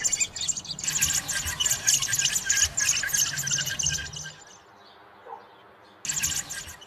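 American robin chicks giving begging calls while being fed: a fast run of high, shrill chirps for about four seconds, then a short burst again near the end.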